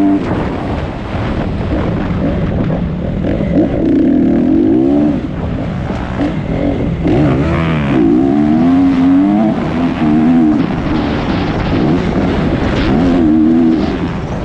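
Dirt bike engine revving hard and backing off again and again as the rider works the throttle and gears around a motocross track, its pitch climbing and dropping every second or two. Wind and rushing noise from the ride run underneath.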